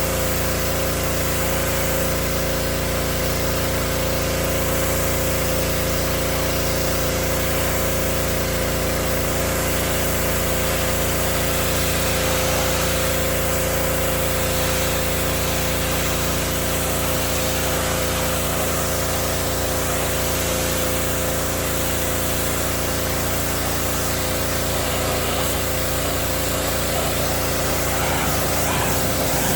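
Gas-engine pressure washer running steadily at full power, with the hiss of its high-pressure water jet stripping algae off wooden deck boards.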